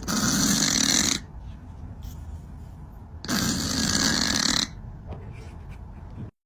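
A cat snoring: two long snores, each a little over a second, about three seconds apart.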